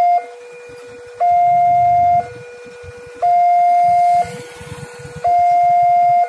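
Railway level-crossing warning alarm sounding: an electronic two-tone signal that alternates a loud higher note and a quieter lower note, each held about a second, in a steady repeating cycle. It warns that a train is approaching and the crossing is closing. Vehicle engines idle faintly underneath.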